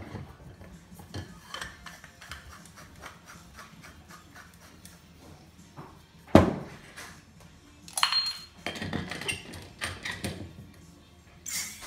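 Metal clinks and knocks from a stainless-steel cream-whipper canister being assembled for nitro brew coffee: the head is screwed down, with a sharp metallic knock about six seconds in and rattling as the gas cartridge holder is screwed on. Near the end comes a short hiss as the gas cartridge is pierced and gas rushes into the canister.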